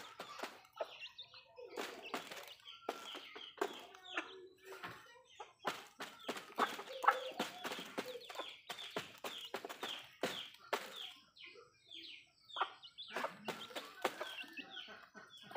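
Backyard chickens clucking, with short high calls that fall in pitch, over frequent sharp taps of beaks pecking at a cardboard box and the concrete.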